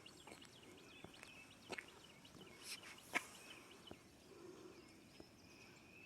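Near silence outdoors with faint, scattered songbird chirps and a few soft taps.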